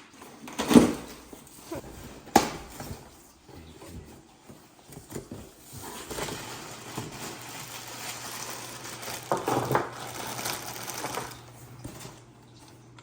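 Clanking and rattling of metal parts being handled on a workbench: two sharp knocks in the first few seconds, then a stretch of clattering and shuffling, with a steady low hum from about halfway through.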